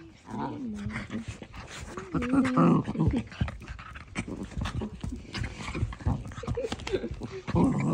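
Miniature dachshund grumbling and growling in play while wrestling with a person's hand, with panting and paws scrabbling on a blanket. The loudest grumble comes about two to three seconds in.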